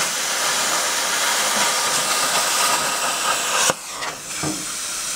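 Plasma cutter cutting through the rusted sheet-steel floor of a VW Type 2 bus battery tray: a loud, steady hiss that cuts off abruptly with a click about three and a half seconds in, after which a quieter hiss carries on.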